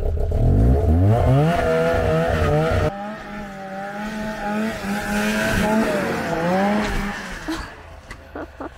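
Arctic Cat 370 snowmobile's two-stroke engine revving up hard as the sled pulls away, then heard fainter as it runs on up the hill, its pitch wavering up and down with the throttle and fading near the end.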